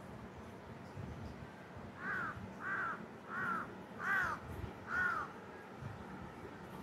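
A crow cawing five times in an even series, each caw short and arched in pitch.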